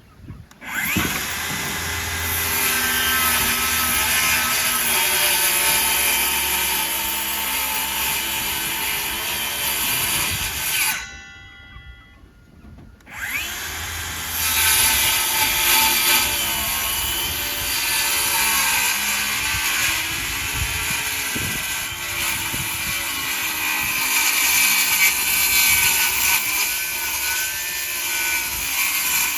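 Power drill running under load in long runs, its pitch wavering as it works. It stops for about two seconds partway through, then runs on again.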